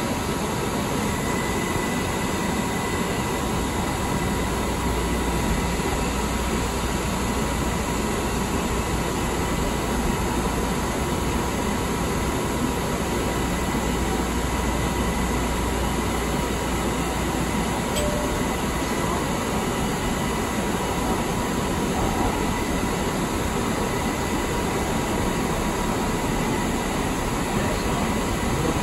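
Pittsburgh light rail car running through a subway tunnel, heard from inside at the front: a steady rumble of wheels on rail with a faint, steady high whine. The low rumble grows heavier about four seconds in.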